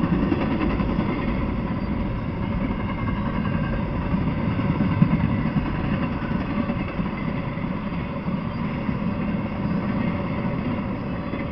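Freight train cars rolling past on the rails: a steady rumble and rattle of wheels and cars that slowly gets quieter toward the end.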